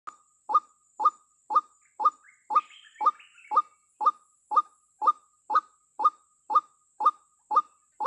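White-breasted waterhen (ruak-ruak) calling, the female's call to a male: the same short croaking note repeated evenly about twice a second without a break.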